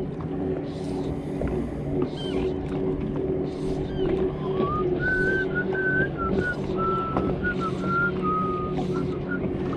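A person whistling a short tune in short held notes, starting about four seconds in, over a steady low motor hum from the fishing boat.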